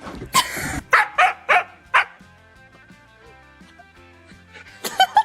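A dog barking several times: a few quick barks in the first two seconds, then a couple more near the end, over background music.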